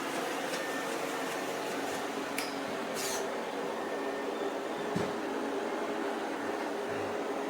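Shark robot vacuum and mop running, a steady motor whir with brush hum, with a few light clicks and a low knock about five seconds in.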